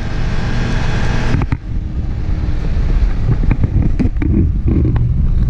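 Ford F-250 pickup driving fast in reverse, heard from inside the cab: a steady engine and road rumble with wind noise. There is a single knock about a second and a half in.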